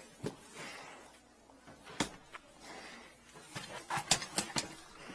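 A few sharp knocks and clanks from a metal ladder being handled and climbed. The loudest comes about two seconds in, and a quick run of clatters follows near four seconds.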